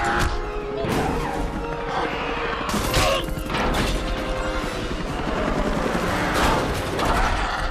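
Film action sound mix: dramatic orchestral score over a helicopter's low rumble, with bursts of gunfire and crashing impacts as pteranodons strike the helicopter. Several sudden whooshing hits break through the steady din.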